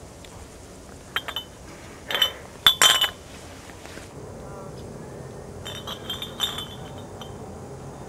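Empty glass beer bottles clinking against one another as they are handled and shifted in a pile, in several short clusters of bright ringing clinks, the loudest about three seconds in.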